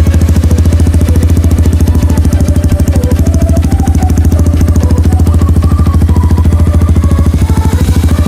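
Honda CRF150L's single-cylinder four-stroke engine idling steadily through a Radamel Racing aftermarket exhaust, with a deep, even, rapid pulsing from the exhaust.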